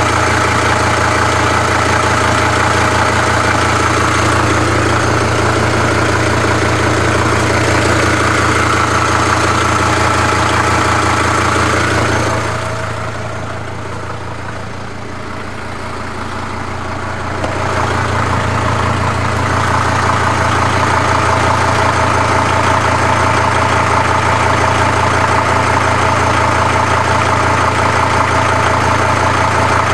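Mercedes-Benz W210 E290's OM602 five-cylinder turbodiesel idling steadily, with a faint rhythmic knock that the owner hears since the cold weather came but is unsure is real. It gets quieter for a few seconds near the middle.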